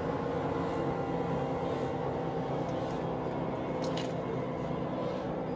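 Helicopter engine running, a steady drone made of several steady tones, unchanging in level.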